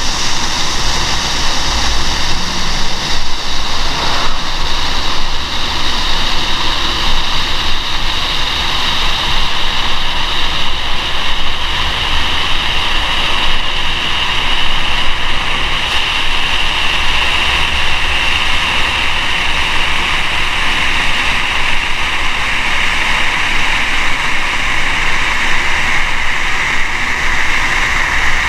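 Category 1 flame-jet firework (stadium-torch type) burning with a loud, steady hissing rush of flame. The hiss slowly drops in pitch as it burns.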